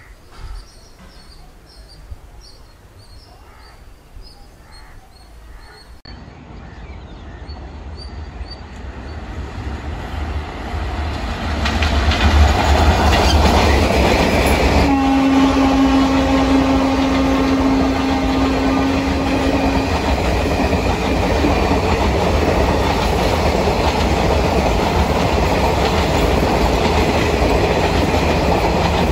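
An electric-locomotive-hauled express train approaches and passes at speed. Its wheels rumble and clatter over the rail joints, growing louder over the first dozen seconds, then holding steady as the coaches pass. About halfway through, the locomotive horn sounds once for about five seconds, while birds chirp faintly at the start.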